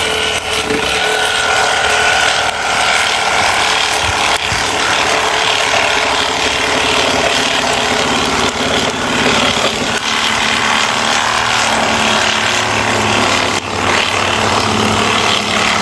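Milwaukee cordless reciprocating saw cutting steadily through a log, its blade sawing back and forth with a brief dip near the end.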